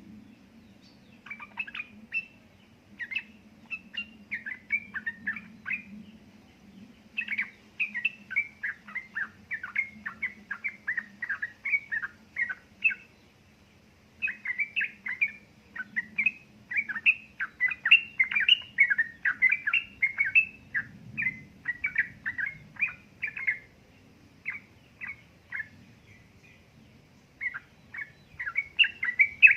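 Sooty-headed bulbul (trucukan) singing in fast runs of short chirping notes, the phrases broken by pauses of a second or two.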